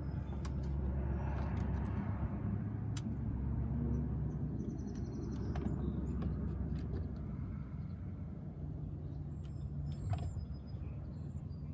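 A boat motor running with a steady low rumble. A few light clicks and short high chirps sound over it.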